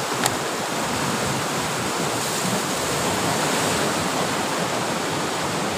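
Steady rush of ocean surf breaking on the shore and rocks, with one sharp click about a quarter second in.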